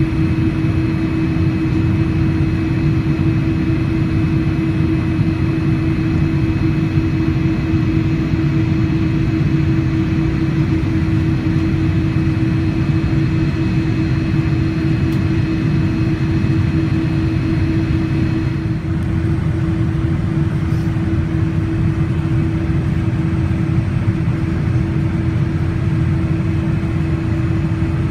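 Boeing 787-9 jet engines at low taxi thrust, heard inside the cabin at a window seat: a steady rushing drone with a low hum. A thin high whine drops out about two-thirds of the way in.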